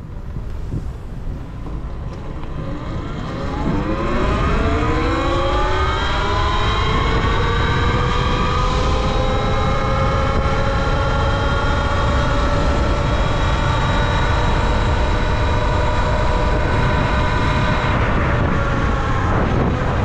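Talaria Sting R electric dirt bike's motor and chain drive whining under full throttle. The whine rises in pitch over the first several seconds, holds steady at speed, then falls away near the end as the throttle eases. Constant wind rush on the microphone runs under it.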